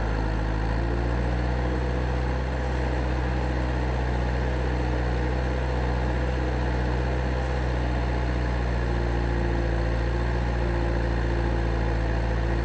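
Excavator engine idling: a steady, deep, even hum that holds the same pitch and level throughout.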